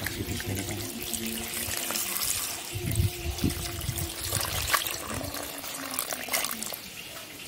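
Water running from a tap, splashing and trickling into a sink or basin.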